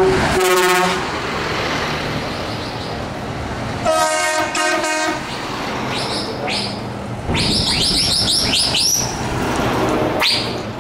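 Truck air horns sound twice over engine and tyre noise as heavy trucks drive past: a short blast just after the start, then a louder, roughly one-second chord about four seconds in. Later, a run of quick high chirps repeats several times.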